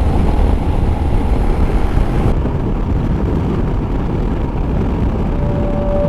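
Motorcycle riding at speed: a steady rumble of engine and wind noise. A steady tone comes in near the end.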